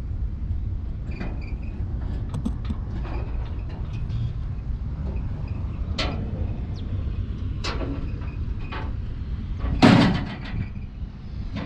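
Vögele 2116T asphalt paver's diesel engine running at a steady idle, with scattered light metallic clicks and knocks. A single loud metallic bang near the end, like a panel or door being shut.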